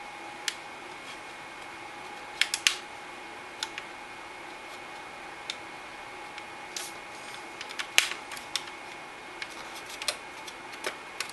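Scattered light clicks and taps of a metal CPU cooler back plate being fitted into place behind the motherboard, about a dozen at uneven intervals, the sharpest about 8 seconds in, over a steady faint hum.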